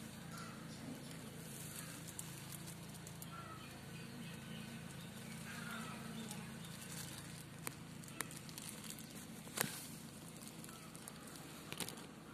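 Quiet low hum inside a car cabin, with a few faint chirps. Several sharp clicks and knocks come from the phone being handled; the loudest is about three-quarters of the way through.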